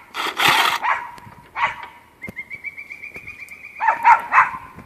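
A dog barking and whining, with a long, thin, wavering whine in the middle and short barks near the end.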